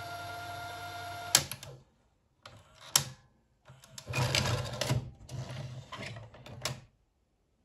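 Funai VIP-3000EE VHS player's tape mechanism: a steady motor hum cuts off with a sharp click about a second and a half in. After a pause, the eject mechanism whirs and clicks in several short runs for about three seconds as the cassette is lifted out, ending with a click.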